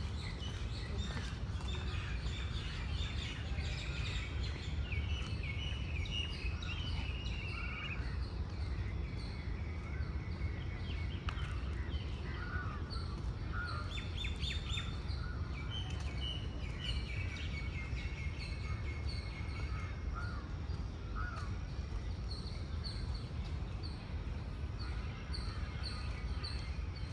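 Several birds calling and singing at once: evenly repeated high chirps, longer descending trilled phrases and scattered short calls, over a steady low rumble.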